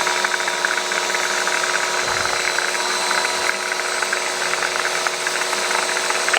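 Electric pressure washer's motor and pump running steadily at full speed while the machine is primed with the lance off. It switches off right at the end, and the pitch falls as it winds down.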